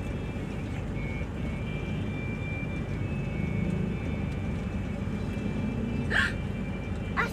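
Car engine idling, heard from inside the cabin as a steady low rumble, with a faint steady high whine and a brief hiss about six seconds in.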